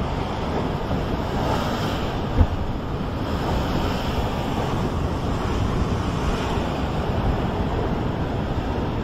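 Sea surf washing on the shore, with wind buffeting the microphone. There is a single brief thump about two and a half seconds in.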